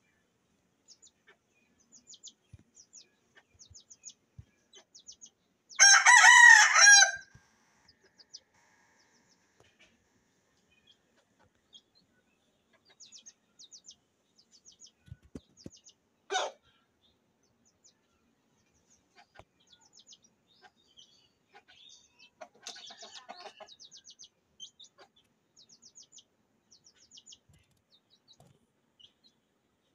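A rooster crows once, loudly, about six seconds in. Around it come faint high chirps, a short sharp call later on, and a quieter burst of hen clucking a few seconds after that.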